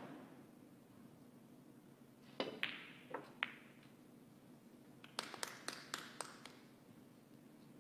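Snooker balls clicking. A cue strike sends the cue ball into the pack of reds with a few sharp clicks, and a couple of seconds later comes a quick run of clicks as the reds knock into each other and the cushions.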